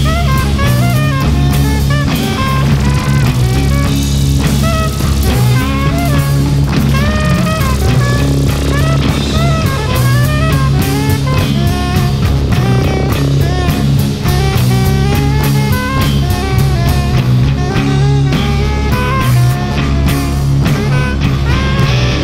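Live jazz-rock band playing: a busy drum kit over a held low bass line, with a lead instrument winding through a melody of bending, sliding notes.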